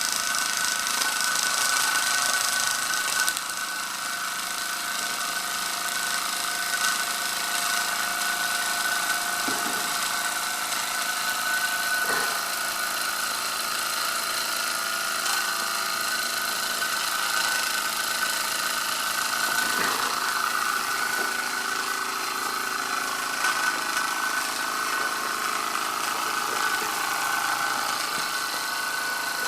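Ernest Plank upright toy steam engine running steadily at speed, a continuous whir with a steady high tone, easing slightly about three seconds in.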